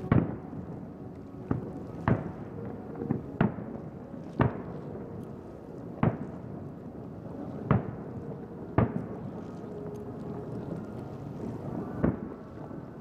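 Aerial firework shells bursting in a display: about nine sharp booms at irregular intervals, some close together, over a steady background.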